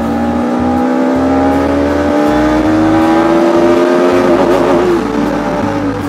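Motorcycle engine accelerating under way, its pitch rising steadily for about four and a half seconds, then dropping at a gear change near the end and pulling again.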